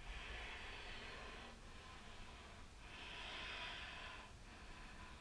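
A woman breathing slowly and audibly: two long breaths, each about a second and a half, while she holds a one-legged balancing yoga pose.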